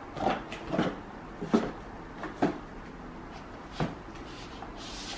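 Handling knocks from a black camera carrying case being turned over and set down on a desk: about five short taps and knocks, the loudest about a second and a half in, with a brief rustle near the end.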